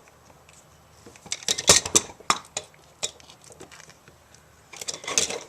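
Small metal parts and hand tools clicking and clinking in irregular clusters as an extension cord plug is worked on by hand.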